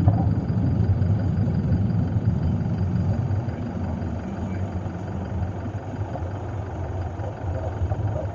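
A low, steady rumble that slowly fades away.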